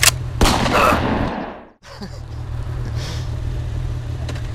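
Motorcycle engine idling at a standstill, the rider's Yamaha XJ600S Diversion inline-four, a steady low rumble. It follows a short rush of noise and a brief dropout about a second and a half in.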